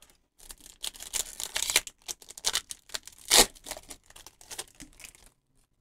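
Foil Pokémon booster pack wrapper being crinkled and torn open: a run of short crackles and rips, loudest about three and a half seconds in.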